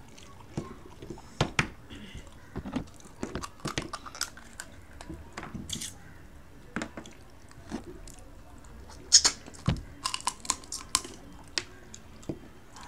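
Close-up eating sounds of people chewing and biting into crab pieces: irregular small clicks and crunches, with a denser run of louder cracks about nine to eleven seconds in.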